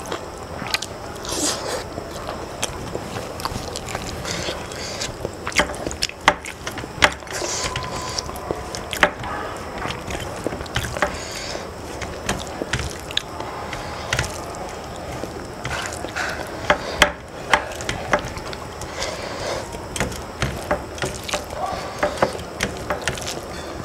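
Fingers mixing rice with wet curry on a stainless steel plate: wet squishing with many irregular sharp clicks of fingers against the metal.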